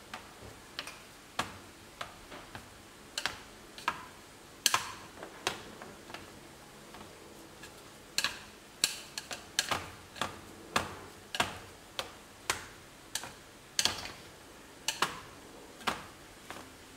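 Wooden chopsticks knocking against an aluminium pot while stirring sticky rice: irregular sharp clicks, one or two a second, some in quick pairs.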